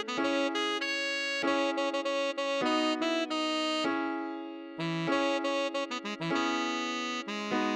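Tenor saxophone playing a pop melody note by note over held piano chords, with a short rest about four seconds in.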